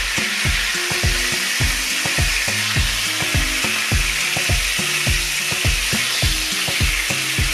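Vegetable oil sizzling steadily in a frying pan around flour-coated pollock pieces, with a wooden spatula moving them about. Background music with a steady beat runs underneath.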